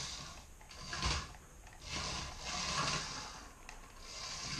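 Toy RC race car's small electric drive motor and gears whirring in spurts as it is driven on a hardwood floor, stopping and starting several times, with a brief knock about a second in.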